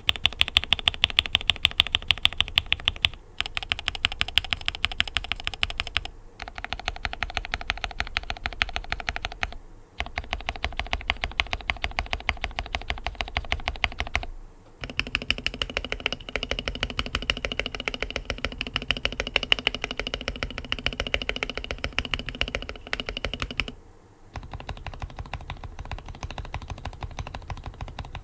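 Fast typing on an AKKO ACR 87 mechanical keyboard fitted with Gateron Milky Yellow Pro linear switches. The keystrokes come in quick, continuous runs, with a brief pause every few seconds.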